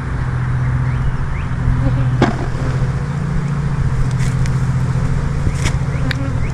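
Honeybees from an opened hive buzzing in a steady low hum, with a few sharp knocks as the brood frame is handled, about two seconds in and twice near the end.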